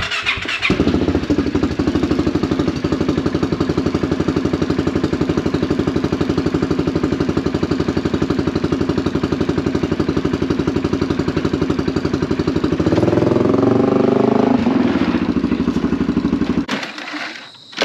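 A small engine running loud and steady with a fast, even pulse. It shifts in pitch for a moment near the end, then cuts off abruptly.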